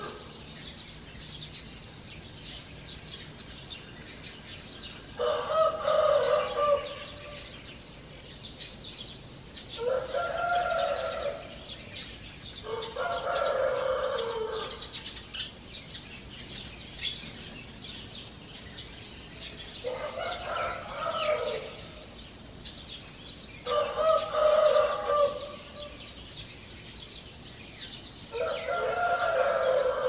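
Roosters crowing one after another, a call about every four to five seconds, over continuous high chirping of small songbirds.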